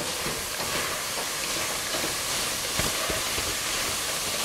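Finely chopped onions sizzling in oil in a pot as they are sautéed, with a wooden spatula stirring and a few light knocks against the pot about three seconds in.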